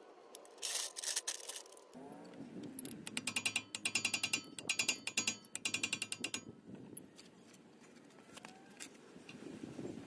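Socket ratchet clicking in four quick runs, after a short metallic clatter.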